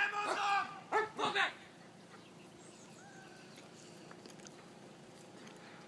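A dog barking, a few loud barks in the first second and a half, then only a faint background.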